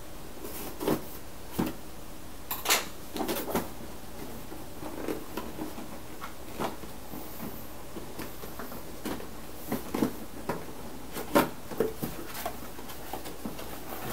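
Cardboard processor box being slit open and unpacked by hand: irregular scrapes, taps and rustles of card, with sharper knocks about three seconds in and again near eleven seconds.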